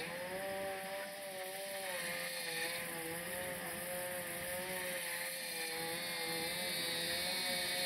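A small engine running steadily, its pitch wavering a little, over a steady hiss, getting slowly louder toward the end.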